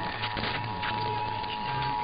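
Emergency Alert System attention signal: the steady two-tone 853 Hz and 960 Hz alarm, held unbroken, with music still audible underneath.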